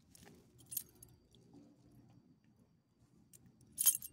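Metal ID tags on a dog's collar jingling as the dog squirms on the ground under a petting hand: a short jingle under a second in and a louder one near the end, with soft rustling of fur and handling in between.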